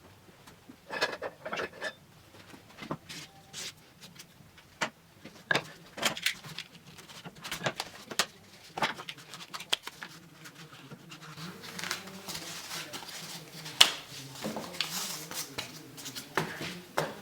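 Scrap foam being cut out by hand: an irregular series of short snips, scrapes and clicks. A faint low hum comes in about two-thirds of the way through.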